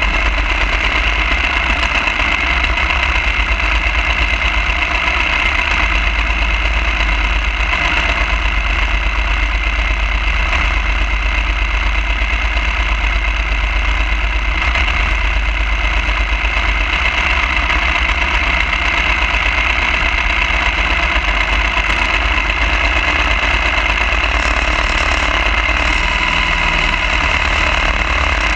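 Small single-cylinder mini bike engine, a Predator 212, idling steadily with no revving.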